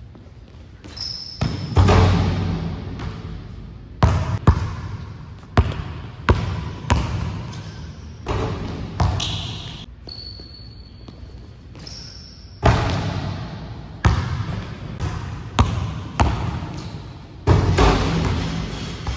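Basketball bouncing on a gym court: a run of irregular sharp bounces, each followed by an echo that dies away in the large hall. A few short high squeaks from sneakers on the court sound in between.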